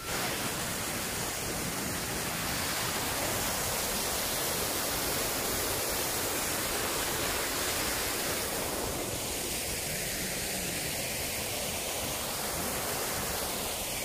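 Steady rush of a small waterfall carrying plenty of autumn water.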